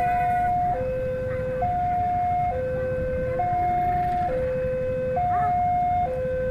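Two-tone electronic railway crossing alarm, alternating evenly between a higher and a lower tone about once a second. Underneath is the low rumble of an approaching diesel-hauled passenger train.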